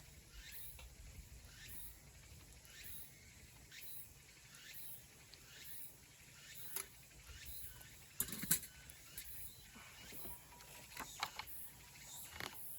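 A creature, insect or frog, repeating a short high chirp roughly three times every two seconds; the calls stop about ten seconds in. A few sharp knocks and clicks come through, the loudest a cluster about eight seconds in, and more near the end.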